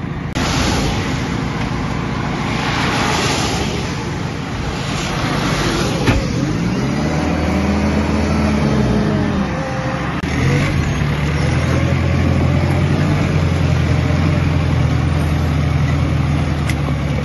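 Cars passing on a wet road with tyre hiss, then a JCB telehandler's diesel engine revs up and back down about seven seconds in and settles into a steady idle.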